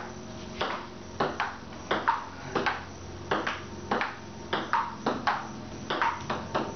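Table tennis rally: a celluloid ball clicking back and forth on the table top and the paddles in a steady, even rhythm, with about two or three sharp clicks a second.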